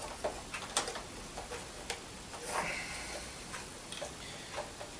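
A few light clicks and taps, one sharper click about a second in, from the parts of a 1967 Hoover Senior upright vacuum cleaner being handled.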